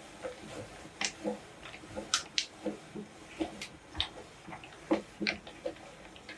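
Meat grinder crushing biscuits: irregular crunching and cracking, with several sharp snaps.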